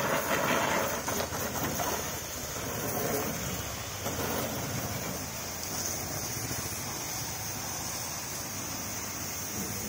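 High-pressure water jet from a pressure washer spraying against a car's underside and wheel arches: a steady dense hiss, louder for the first two seconds or so, with a steady low hum beneath.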